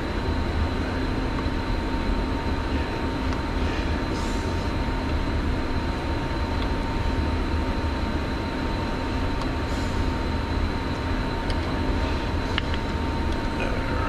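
Steady mechanical drone and rumble with a constant high whine running through. A few light clicks near the end.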